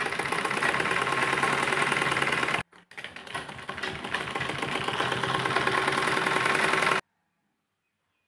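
Sewing machine running steadily and fast, stitching down a folded edge of fabric. It runs in two stretches with a brief pause about two and a half seconds in, then stops near the end.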